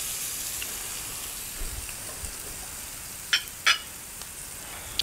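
Seasoned chicken breasts sizzling as they pan-sear in hot olive oil, a steady hiss that slowly eases. There are two brief sharp ticks a little over three seconds in.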